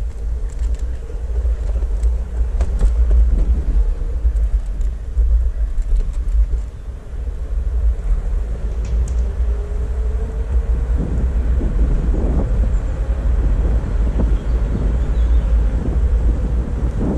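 Backfire Ranger X2 electric all-terrain skateboard on the move: a loud, steady low rumble from the wheels rolling over the ground, with a faint motor whine that rises in pitch between about seven and twelve seconds in as the board speeds up. Scattered small clicks and knocks come through.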